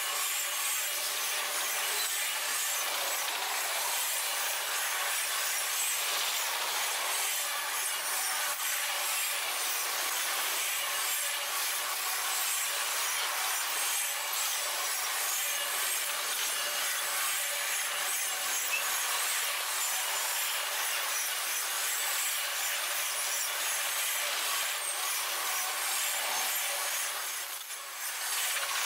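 Double-stack intermodal freight train's well cars rolling past, their steel wheels on the rails making a steady rubbing noise, with a brief lull near the end.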